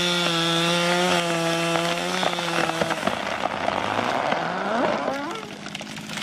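Chainsaw running at full throttle while felling a tree, holding one steady high pitch for about three seconds before breaking off. A few short rising squeals follow about five seconds in.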